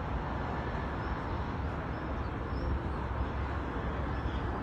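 Steady hum of distant city road traffic, with a deep rumble underneath and a few faint high chirps.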